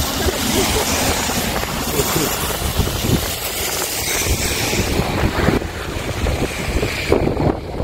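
Wind buffeting the microphone in gusts over a steady hiss of wind and rain, with a car's tyres swishing past on the wet road.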